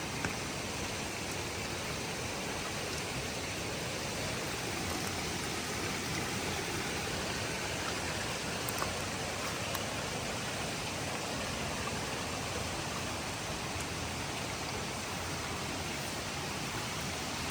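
Steady rush of a spring-fed stream running high with floodwater from heavy storm rain.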